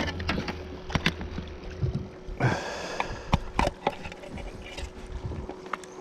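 Scattered clicks and knocks in a small fishing boat, with a faint steady hum and a brief rustling burst about two and a half seconds in.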